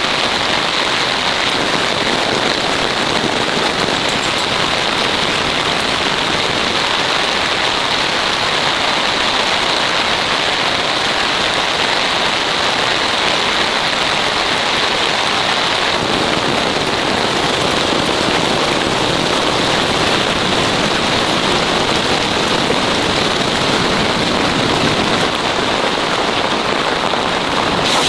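Heavy rain falling on a tent, a dense and steady pattering.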